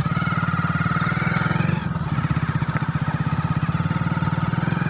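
A vehicle engine running steadily close by, with a fast, even throb.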